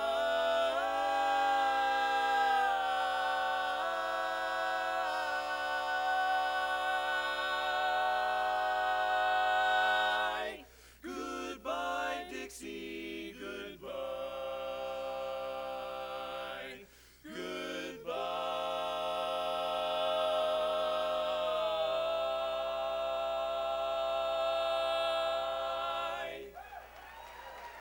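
Male barbershop quartet singing a cappella in close four-part harmony: the song's closing chords, held long. A final chord is sustained about eight seconds before it cuts off near the end.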